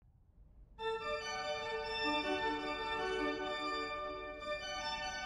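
Organ music: slow, held chords that come in about a second in.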